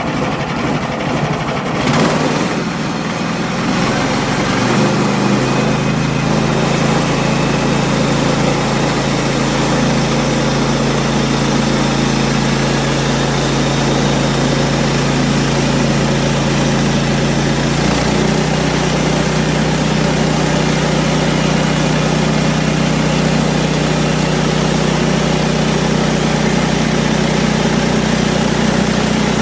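Sawmill engine running steadily while a pine log is milled, with a short knock about two seconds in.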